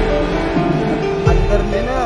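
Background music: a song with singing over sustained notes and low drum strokes.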